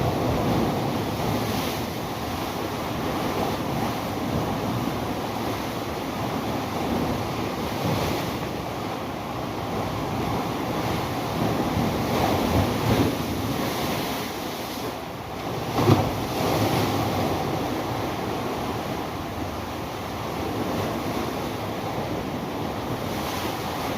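Sea waves washing, with wind rushing over the microphone; one brief louder burst about two-thirds of the way through.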